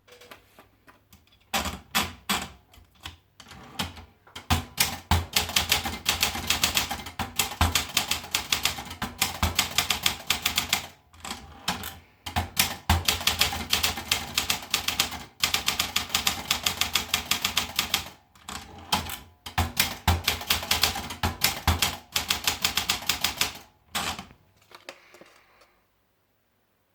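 Olympia Traveller portable manual typewriter being typed on: fast runs of key strikes with a few brief pauses, stopping near the end.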